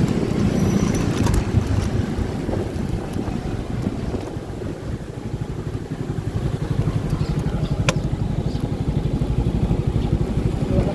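Motorcycle engine running while riding, with wind noise on the microphone. From about halfway through, the engine's fast, even pulsing comes through more clearly. There is a single sharp click near eight seconds in.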